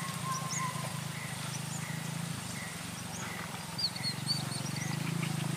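Small birds chirping, with short rising notes and a brief call repeated about twice a second, over a steady low hum.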